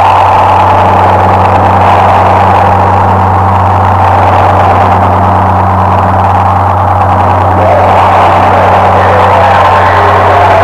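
Power electronics noise track: a loud, steady, distorted low drone under a harsh, wavering layer of mid-range noise.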